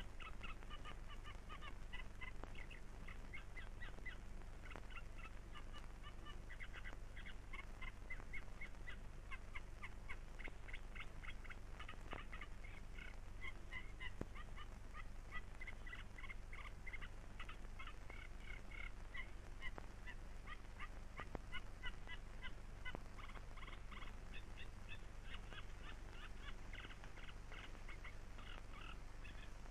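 A flock of waterbirds calling, with many short calls overlapping all through, over a steady low hum from the old film soundtrack.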